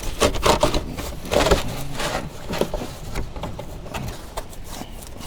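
Plastic packing foam being pushed and squeezed into a gap behind plastic trim panels: a run of irregular crackles, rubs and small knocks.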